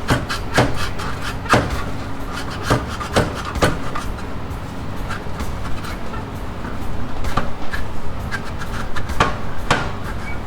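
A Freedom aftermarket exhaust pipe being twisted and worked loose from a motorcycle's header: irregular metal knocks and clunks with scraping, rubbing sounds in between. The knocks bunch up in the first few seconds and again near the end.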